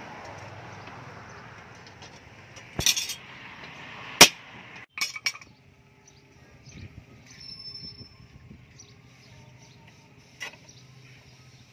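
Sharp metal-on-metal clinks: a steel leaf spring knocking against a steel pipe stake as it is set and shifted by hand. There are a few strikes between about three and five seconds in, the loudest just after four seconds, and one smaller knock near the end.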